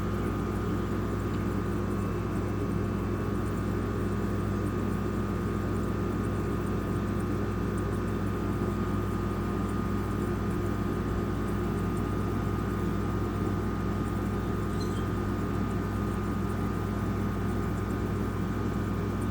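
Haier 5,050 BTU window air conditioner running in cooling mode: a steady hum from its compressor and fan, with several constant low tones under the rush of blown air.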